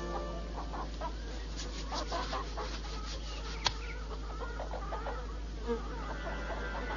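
Small animal or insect sounds: many short chirps and scattered clicks, with one sharp click about three and a half seconds in. Music fades back in near the end.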